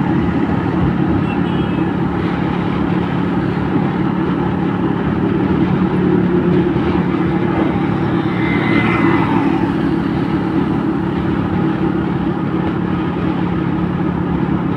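Truck engine running steadily at cruising speed, with tyre and road noise, heard from inside the cab. About eight seconds in, a brief tone falls in pitch.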